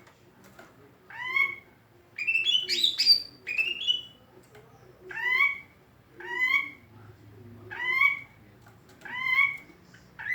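Green leafbird (cucak ijo) giving its unusual call: short upslurred notes repeated about once every second and a half, with a quicker, higher flurry of notes about two seconds in.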